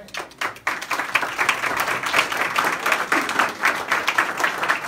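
A crowd applauding with dense, steady clapping that starts right away.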